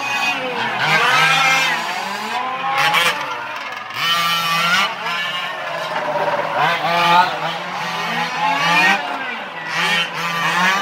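Several 1:5-scale RC race cars' small petrol engines revving up and down together as they race through the corners, their pitches overlapping and rising and falling, with a steady lower engine note in between.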